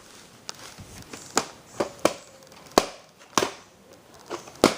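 Plastic shrink-wrap on a VHS tape crackling and snapping as it is handled and peeled off: about seven sharp crackles at uneven intervals, the loudest near the end.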